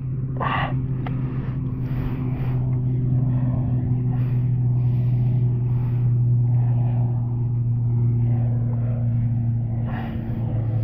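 An engine running with a steady low hum; its pitch drops slightly near the end.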